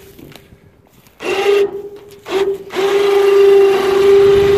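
Electric ATV winch motor on a truck-bed crane whining under load: two short bursts, then running steadily from a bit past halfway, paying out cable to lower a heavy log.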